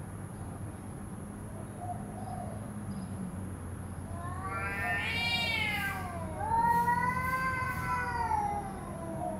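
Cats yowling in a standoff: faint low growling yowls at first, then a long yowl that rises and falls about four seconds in, followed by a longer, louder one. These are the threat calls of angry cats warning each other off.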